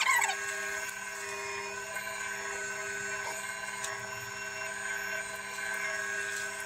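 Electric potter's wheel spinning at speed, its motor giving a steady hum with several held tones.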